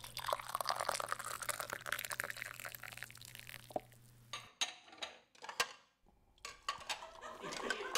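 Liquid poured from a porcelain teapot into china teacups, a steady splashing stream. About halfway through the pour breaks off, with a few sharp clicks, then starts again into the next cup.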